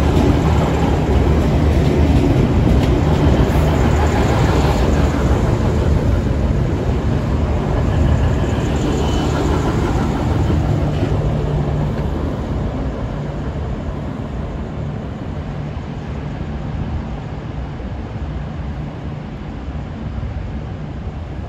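V/Line VLocity diesel multiple unit running close by: a steady low diesel drone with rolling rumble, loudest in the first half and easing off over the last several seconds.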